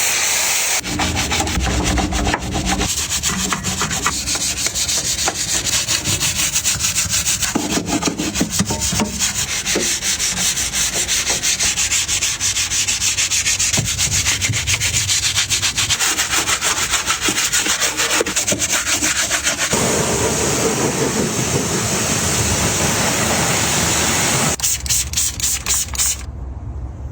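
Sanding, a steady rapid scraping rub that changes character every few seconds as one short shot cuts to the next.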